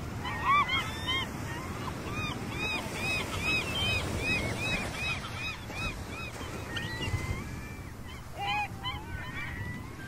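Gulls calling: a quick run of short, arched, yelping calls, about three a second, then a few more near the end, over a steady low rush of surf.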